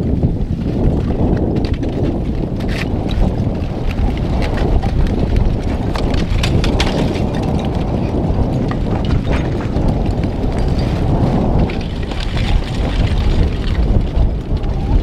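Front of a blocky basalt lava flow crackling and clinking as its cooled crust cracks and loose blocks shift and tumble, in clusters of sharp clicks. Under it runs a steady low rumble of wind on the microphone.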